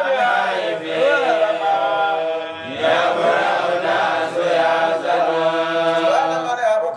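A man's voice chanting melodically, holding long notes and bending them in ornamented turns, with a brief pause for breath about two and a half seconds in.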